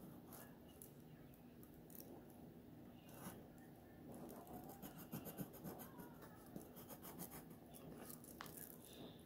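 Faint scratching of a pencil drawing on paper in many quick strokes, busiest in the second half, over a faint steady hum.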